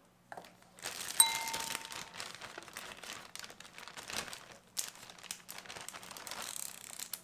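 Crinkling and rustling handling noises, with one short ringing ding about a second in.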